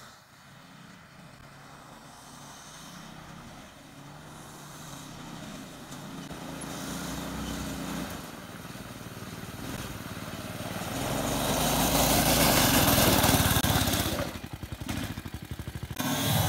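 Murray go-kart's small engine running as the kart drives up, growing steadily louder and loudest about twelve to fourteen seconds in as it passes close; after that the sound pulses rapidly for a couple of seconds.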